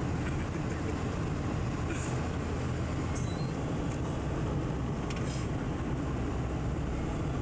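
Volvo F12 lorry's diesel engine running steadily at cruising speed, heard from inside the cab as a constant low drone with tyre and wind noise, and a few faint rattles now and then.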